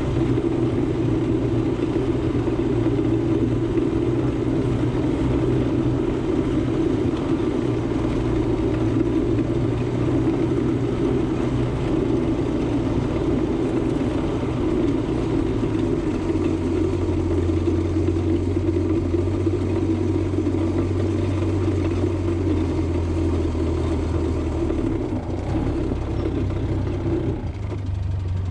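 A utility vehicle's engine running steadily as it drives. Its note changes about halfway through and again near the end, where it eases off to a lower, quieter run.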